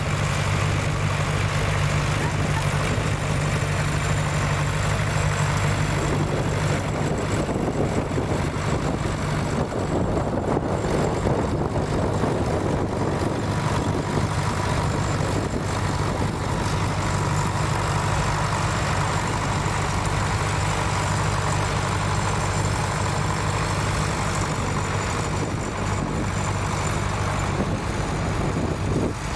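Tractor engine running steadily, a continuous low drone with no break.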